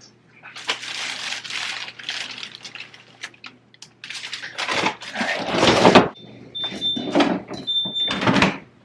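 Food containers and packaging rustling and being set down with knocks and thuds in a refrigerator. A few short high beeps sound near the end.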